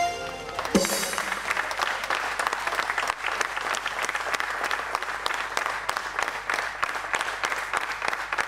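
Audience applauding, with a crackle of many hands clapping; the act's music ends about a second in, just as the applause starts.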